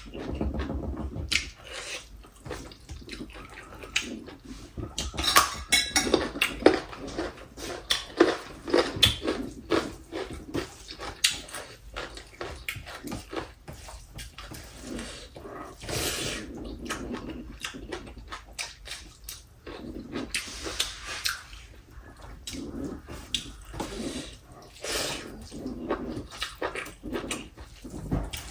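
Close-miked eating sounds of a person eating rice and soup: wet chewing, lip smacks and slurps, with many short clicks.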